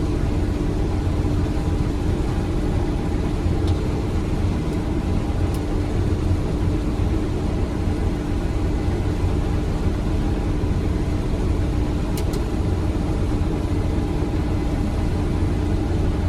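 Case IH 8010 combine running steadily under load while harvesting soybeans, heard from inside the cab: an even drone with a constant hum, and a few faint clicks.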